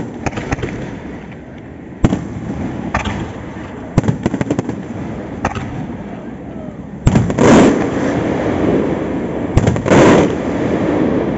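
Aerial firework shells bursting. Sharp single bangs come about every two seconds, then louder, longer bursts about seven and ten seconds in.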